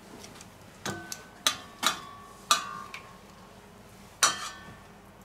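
Metal kitchen tongs clinking against a stainless-steel mixing bowl while an egg-soaked slice of toast is turned and lifted out: about five sharp clinks with a short metallic ring, spread over four seconds.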